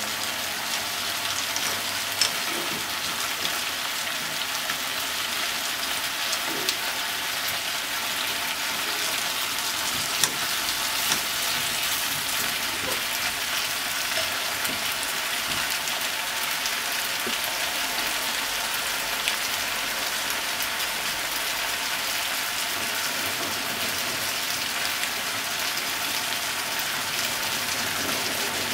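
Pork, potatoes, onion and carrot frying steadily in a pot, an even sizzle with a few small clicks here and there.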